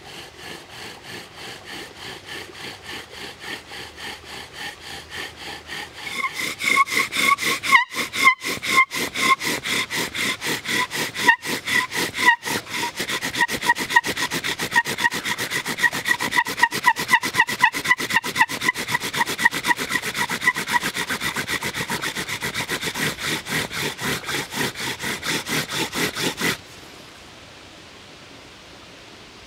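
Bow drill fire-making: a wooden spindle spun back and forth in a fireboard notch, with a rhythmic grinding rub on each bow stroke. About six seconds in, the strokes get louder and the spindle squeaks on every stroke as the notch smokes, building toward an ember. The drilling stops abruptly near the end.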